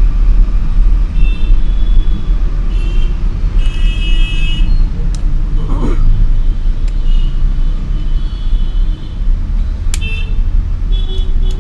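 A steady low rumble, with a few short high tones scattered through it and a brief voice-like glide about six seconds in.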